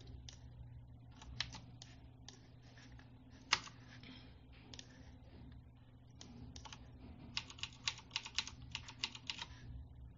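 Computer keyboard keys tapped in short clusters, the Ctrl+R shortcut pressed again and again to repeat a duplicate command. There is one sharper tap about three and a half seconds in and a quick run of taps near the end, over a faint steady hum.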